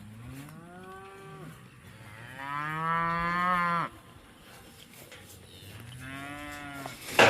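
Cows mooing: three separate moos, the middle one longest and loudest.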